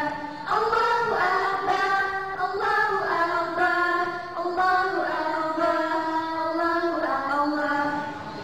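A group of young girls singing a slow melody together into microphones, each note held for about a second before moving to the next.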